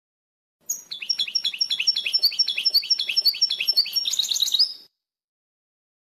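European goldfinch song in the 'wdaniya' style: a fast run of repeated high, down-slurred notes, about five a second, ending in a short dense trill. The phrase starts about half a second in and stops about a second before the end.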